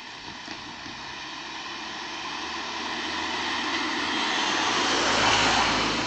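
A car driving past close by on an asphalt road: tyre and engine noise swells over several seconds, is loudest about five seconds in, then fades.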